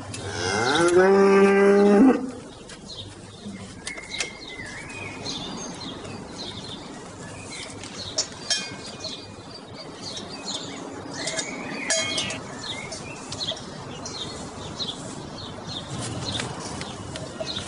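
A dairy cow mooing once, a single long call of about two seconds right at the start. After it, a much quieter stretch with short, faint high chirps and small clicks.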